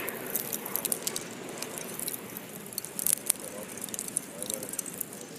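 Large charcoal fire burning in an open grill trough: a steady rush of flame with many small scattered crackles and pops.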